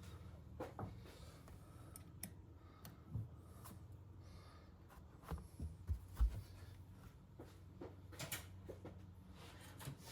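Scattered clicks and knocks of hand tools being handled, with a few heavier knocks about five to six seconds in, over a steady low hum.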